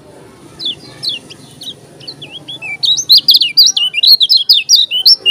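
Kecial kuning, a yellow white-eye, singing: a few scattered short chirps, then, about three seconds in, a rapid, loud run of quick sweeping whistled notes.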